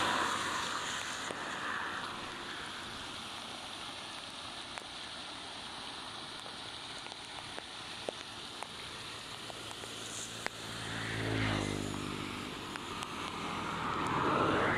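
Steady hiss of rain and running water, with vehicles passing on the wet road: one about eleven seconds in, its engine pitch dropping as it goes by, and another near the end. A few light ticks are heard over the rain.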